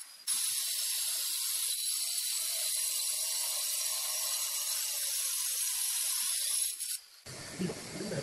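Handheld wet-cutting circular saw with a diamond blade cutting through a granite slab: a steady, high-pitched grinding hiss that dips briefly just after the start and stops about seven seconds in, giving way to quieter background sounds.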